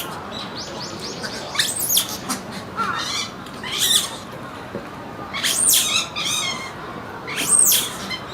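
Monkey calls: short, high-pitched shrieks that sweep sharply in pitch, repeated every second or two, with a quick run of several calls about half a second in, over a steady background hiss.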